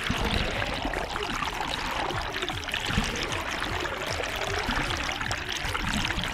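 Steady rushing and splashing of water.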